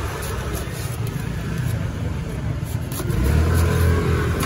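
Steady low rumble of street traffic, swelling as a vehicle passes about three seconds in.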